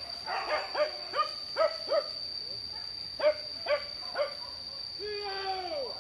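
Hunting dogs giving tongue on a fresh wild boar scent trail: two runs of short, quick yelps, then one longer howl near the end that falls in pitch. A steady high insect drone runs underneath.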